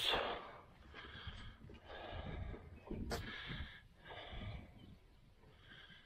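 A person breathing hard close to the microphone, about one breath a second, with a single sharp click about three seconds in.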